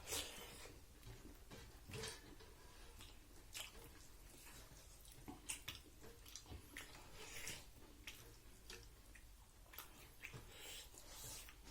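Faint eating sounds: chewing, with many small clicks and wet smacks scattered irregularly throughout.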